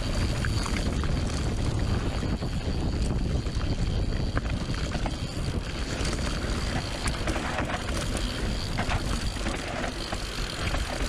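Mountain bike riding fast down a dirt trail: a steady rush of wind over the action-camera microphone and tyres rolling over the ground, with scattered clicks and rattles from the bike.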